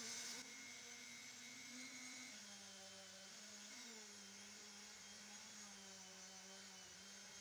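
Small handheld rotary tool running with a steady whine, its polishing wheel buffing a zinc-plated screwdriver shaft; the pitch drops a little about two seconds in.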